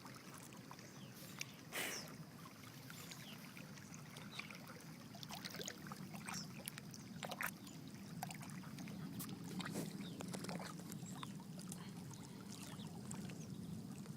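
Faint lake water lapping, with scattered small splashes and ticks over a steady low rumble that grows slightly louder in the second half.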